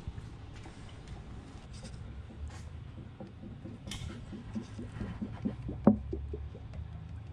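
Olive oil glugging out of an upturned plastic bottle into an engine's oil filler neck, air bubbling back up into the bottle in short irregular pops that come faster and stronger after about three seconds. A sharper knock stands out near six seconds.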